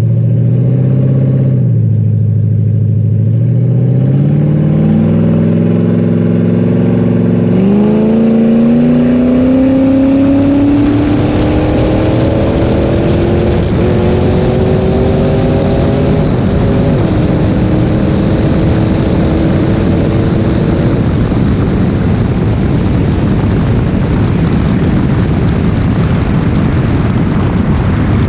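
Camaro Z28's LS1 V8 pulling the car up to speed, its revs climbing slowly and steadily for several seconds in one gear before fading under rushing wind noise on the outside-mounted camera. The long hold before upshifting fits the lazy 1–2 shift that the owner blames on a bad throttle position sensor.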